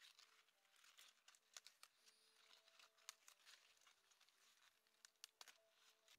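Faint crisp snapping and rustling of romaine lettuce leaves being broken off the plant by hand: a scatter of small, sharp clicks and crackles.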